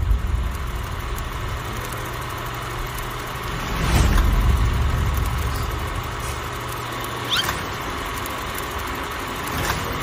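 Horror trailer sound design: a low, steady drone, with a swelling hit about four seconds in and a short rising swish about seven seconds in.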